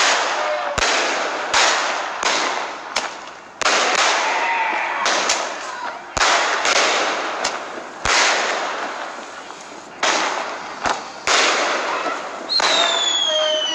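Consumer aerial fireworks going off in a fast string of bangs, about one a second, each trailing off into crackling. Near the end a whistling firework sounds, falling in pitch.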